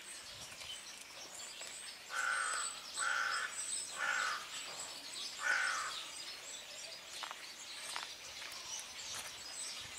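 A bird giving four short calls about a second apart, over faint chirping of small birds.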